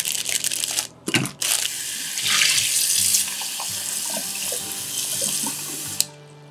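Kitchen tap running into a stainless steel bowl as hands rinse dried shiitake mushrooms, the water splashing over them. The flow drops briefly about a second in, then runs on and stops near the end.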